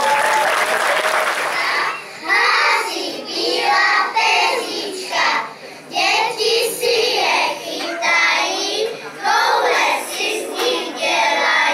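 A group of young children singing together in unison, in short phrases with brief pauses between them, after a couple of seconds of dense noise at the start.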